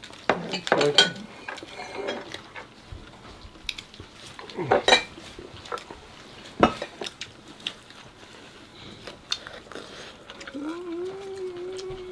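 Tableware clinking at a meal table: several sharp clinks of cutlery and dishes, with brief voices and a drawn-out voiced sound near the end.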